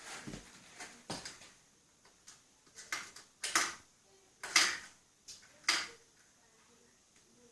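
Irregular clicks, knocks and short scrapes of metal parts and tools being handled during assembly of a mini bike, about eight in all, the loudest about four and a half seconds in.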